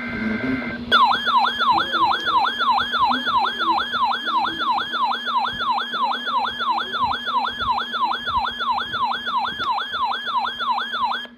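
A brief burst of EAS digital data tones, then an electronic yelp siren: a fast wavering tone of about three falling sweeps a second that starts about a second in and cuts off suddenly near the end. A steady low hum runs underneath.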